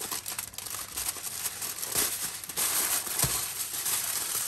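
Aluminium foil crinkling and crackling as it is folded and pressed down by hand.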